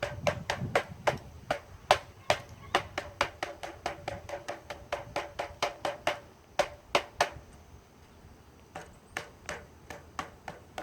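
A steady series of sharp taps on a hard object, about three a second, each with a short ring. They stop for a second or two about seven seconds in, then start again.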